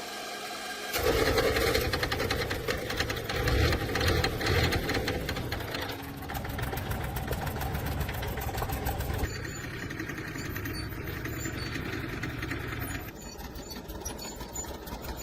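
The repaired old tractor engine running after the repair, a fast, even knocking beat of rapid firing strokes, starting about a second in.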